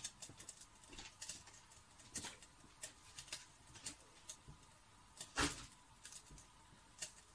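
Large pot of water and meat heating on an induction hob towards the boil: faint scattered ticks and crackles over a thin steady whine, with one louder click about five seconds in.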